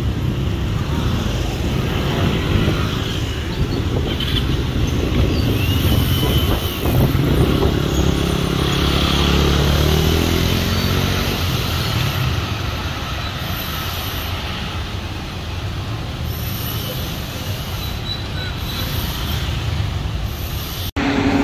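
Yellow Line monorail train passing overhead on its elevated guideway above steady road traffic. A low hum shifts in pitch for a few seconds around the middle as the train goes by.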